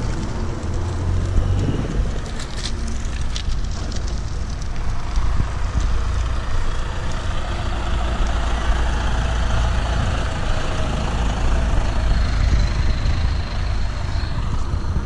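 Street traffic: trucks and cars driving past on a rough road, a steady low rumble that swells and fades as they pass, with a few sharp clicks about three seconds in.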